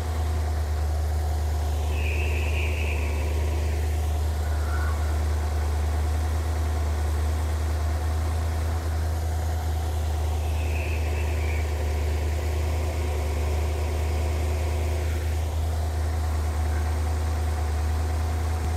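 1957 Ford Thunderbird's Y-block V8 idling steadily while its ignition timing is being set by turning the distributor.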